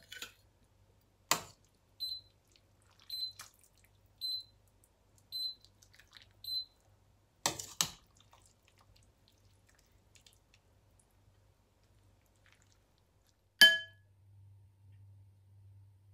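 Metal ladle clinking and scraping against a glass bowl and a steel pot as curry is spooned out. The loudest sound is one sharp, ringing clink near the end. In the first half there are five short high electronic beeps, evenly spaced about a second apart, and a low hum comes in after the last clink.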